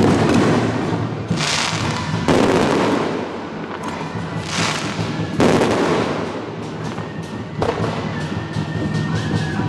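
Fireworks display: aerial shells bursting one after another, about six loud bursts, each trailing off in crackle.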